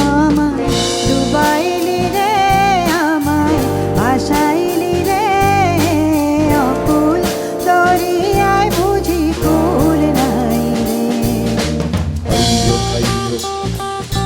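Band playing a folk song: a gliding, ornamented lead melody over drum kit, bass and percussion, with no words sung.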